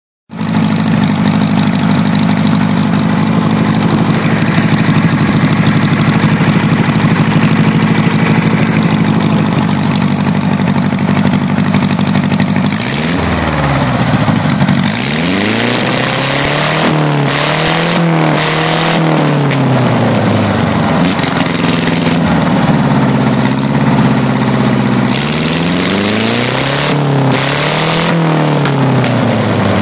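A Chrysler-built Continental 4AO32-II 32 cubic inch air-cooled flat-four generator engine running with its mufflers removed. It holds a steady speed for the first dozen seconds, then revs up and down several times in repeated swells.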